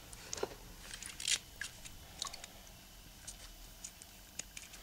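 Rubber-gloved fingers handling small plastic-and-gasket test samples: faint, irregular crinkles, rustles and light clicks.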